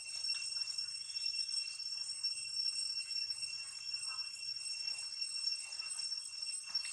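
Steady, high-pitched insect drone made of several constant tones that never break.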